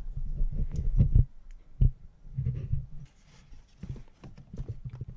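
Irregular metallic clicks and knocks from a hand tool working on the water pump bolts of a 2.0 TDI engine, with some quick runs of ticks.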